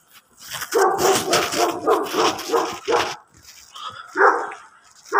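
A dog barking: a quick run of about seven barks, about three a second, then one more bark near the end.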